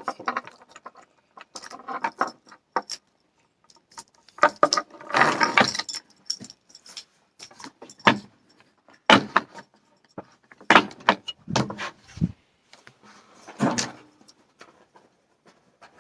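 Metallic clicking and rattling of gear being handled, in a string of separate short clatters with the busiest stretch about five seconds in.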